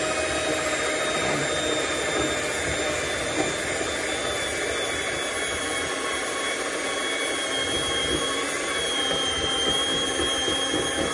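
Electric hand mixer running steadily with a high motor whine, its double beaters churning flour and cocoa powder into a thick chocolate brownie batter in a glass bowl.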